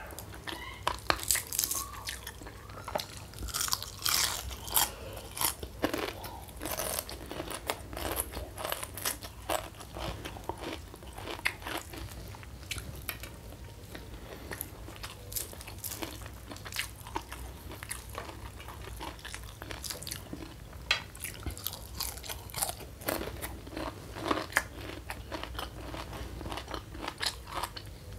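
Chewing and crunching of crispy fried mushroom and raw vegetables, with sharp crackly bites that come in clusters between steadier chewing.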